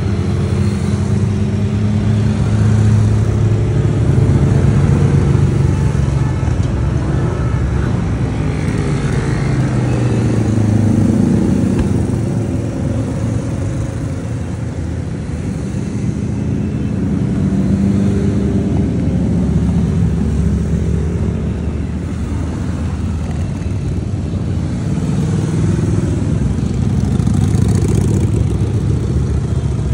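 Several motorcycle engines running together as a column of bikes rolls past, their pitches overlapping and rising and falling as they pass.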